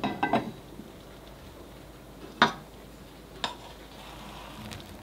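Ceramic rice pot and lid being handled: a few light clinks, then two sharp knocks about a second apart as the lid is set down and a wooden rice paddle knocks against the pot.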